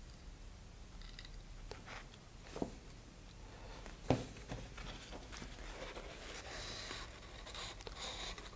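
Faint handling sounds on a worktable: a few light clicks and taps, two of them sharper about two and a half and four seconds in, then paper towel rustling over the last couple of seconds.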